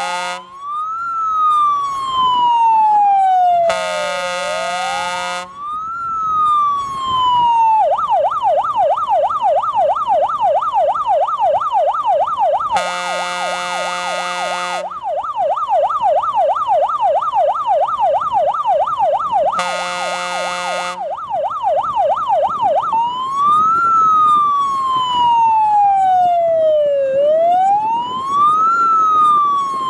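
Star 266 fire engine's siren with its horn. The siren first sweeps slowly up and down in a wail, switches to a fast yelp for about fifteen seconds, then returns to the slow wail. A loud, steady horn blasts three times over it, each blast lasting a second or two.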